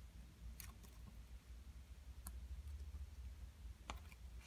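A handful of faint, sharp clicks of small phone parts being handled and pressed into place during reassembly of an iPhone 6s Plus display, over a low steady hum.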